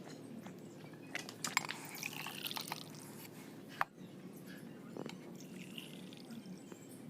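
Water being poured from a jug into a glass, in a spell about a second in and another near the end, with a few sharp clicks.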